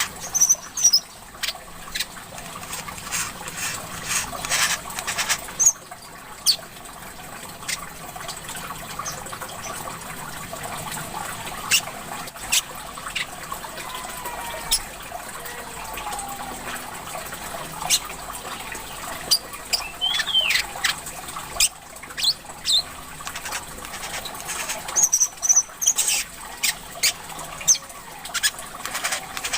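Small songbird calls, short sharp chirps and clicks with a curving whistle about two-thirds in, over a steady trickle of running water.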